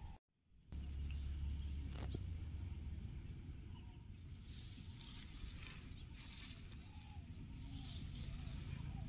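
Quiet outdoor ambience with a low rumble, a steady high-pitched insect drone and faint bird chirps, plus a single click about two seconds in.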